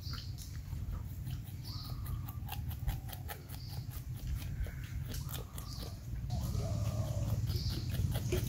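Porcupine chewing fruit: a fast, irregular run of sharp wet crunches and clicks as its incisors bite through the flesh.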